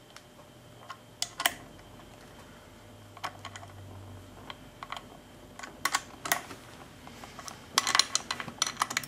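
Hand socket ratchet clicking in short runs, with light metal taps, as the head bolts are run down on an aluminium cylinder head.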